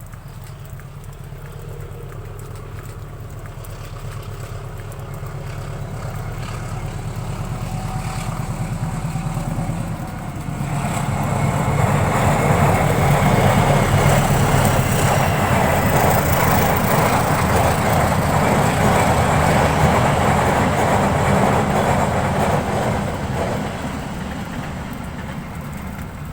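A train approaching and passing: a low engine rumble grows louder for about ten seconds, then the loud, steady rush of wheels and cars going by takes over, easing off near the end.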